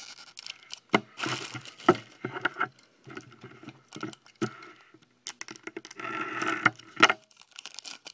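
Foil trading-card pack being torn open and crinkled by hand: irregular crackles and sharp snaps, with a longer crinkle near the end. The wrappers are tough to open.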